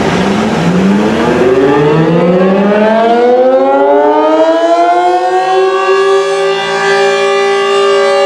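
Outdoor tornado warning siren winding up: its pitch rises steadily for about six seconds, then levels off into a steady loud wail.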